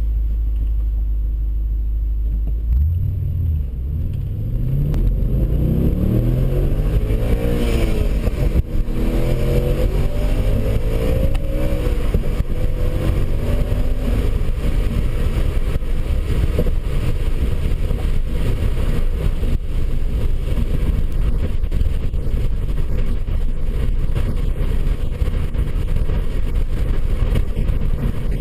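A vehicle engine idling, then pulling away with its pitch rising in several steps as it accelerates through the gears, then running steadily under way.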